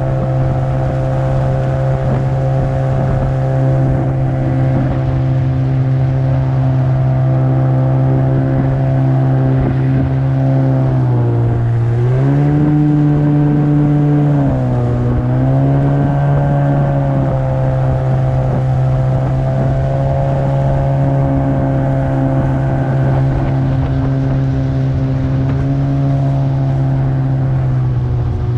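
Yamaha 30 two-stroke outboard with a jet unit running steadily under way on a boat. About halfway through, the engine note dips, rises for a couple of seconds, dips again, then settles back to its cruising pitch.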